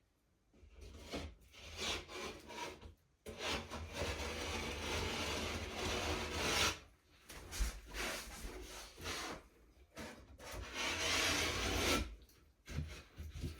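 Drywall being cut by hand: a blade scraping and rasping through the gypsum board in several long strokes with short pauses between them.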